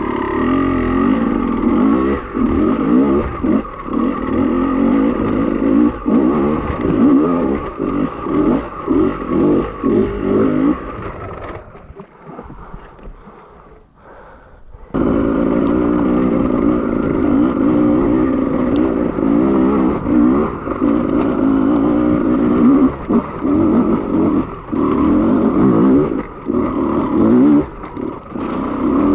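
Beta enduro motorcycle engine revving in short bursts, on and off the throttle, while climbing a rocky trail. About twelve seconds in, the engine sound dies down for a few seconds with the bike down in a rut. It then comes back suddenly and loud, revving hard again.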